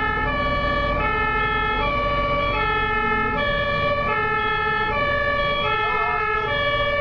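German ambulance two-tone siren sounding continuously, switching between a high and a low note about every two-thirds of a second, over a low traffic rumble.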